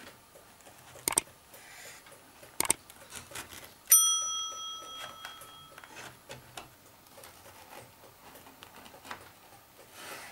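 A knife cuts through crumbly shortcrust cake with faint scraping and two sharp clicks. About four seconds in comes one clear, bell-like metallic ding that rings for nearly two seconds and is the loudest sound.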